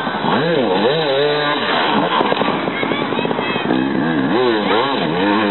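Off-road enduro motorcycle engine revving hard, its pitch rising and falling again and again as the throttle is worked.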